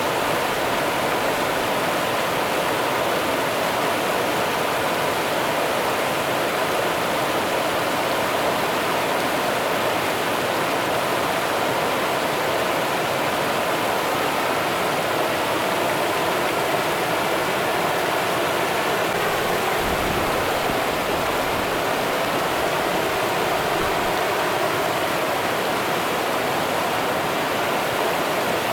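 Rio Grande river water running over rocks in a steady, even rush with no breaks.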